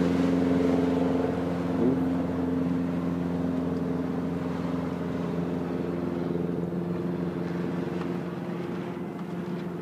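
Motorboat engine running steadily underway, a constant pitched hum over the rush of water and wind, easing a little near the end.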